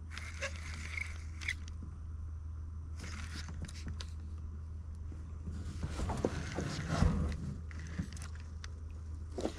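Baitcasting reel being cranked in short spurts while a topwater lure is worked, giving scattered light clicks and rattles of reel and rod handling, busiest a little past the middle, over a steady low hum.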